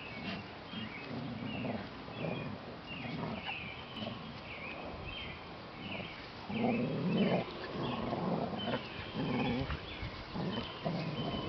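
Two dogs play-fighting, with repeated rough play growls, loudest about six and a half to seven and a half seconds in. Birds chirp in the background.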